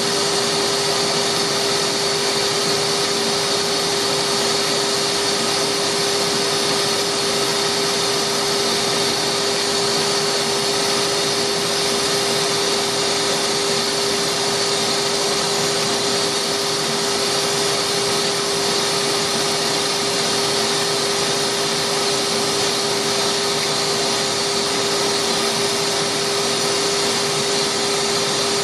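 Delta wood lathe running at a steady speed: a constant motor whine over an even hiss, with no change in pitch or level.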